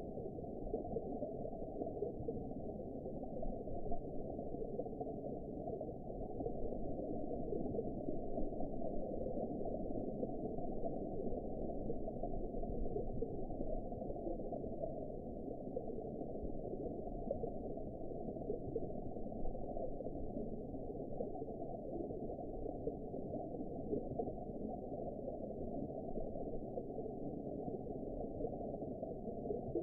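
Steady, muffled underwater ambience: an even, low rushing noise with a faint crackly texture and nothing high-pitched in it.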